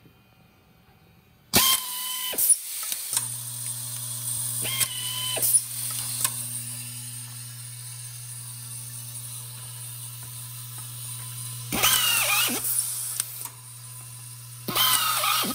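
Automatic screw feeder running: its vibratory bowl hums steadily at one low pitch from about three seconds in, after two short bursts of compressed-air hiss and whistle. About three quarters of the way through and again at the end, the pneumatic pistol screwdriver whines and rattles as it drives self-drilling screws into aluminum extrusion.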